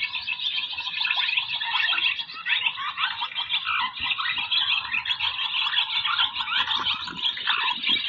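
Dense chorus of swallows twittering: many short, high chirps overlapping without a break. This is the roosting chatter of swallows, the call used to lure a flock down to the net.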